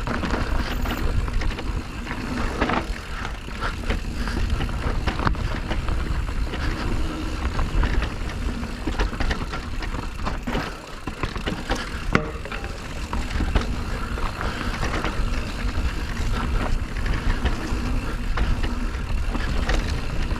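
Electric mountain bike ridden along a dirt trail: tyres rolling, the bike rattling over bumps with scattered knocks, over a steady low rumble of wind on the microphone.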